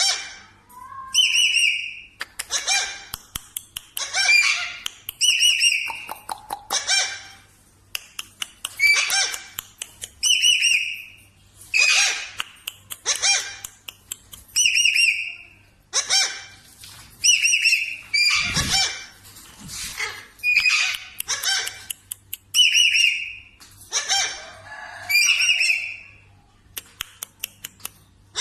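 Parrot calling over and over in short, shrill, whistle-like squawks, about one a second.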